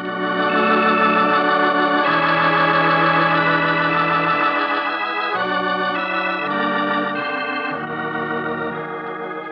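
Organ music bridge between scenes of a radio drama: a run of held chords that swells in and changes every second or two, marking the change of scene.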